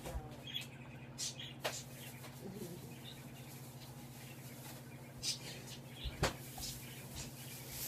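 Quiet room tone: a steady low electrical hum with a few faint clicks and soft knocks, the sharpest knock about six seconds in.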